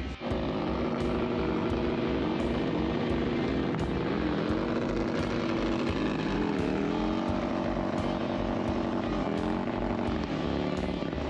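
Motorcycle engine held at high revs, its pitch dipping briefly about six and a half seconds in and again near the end.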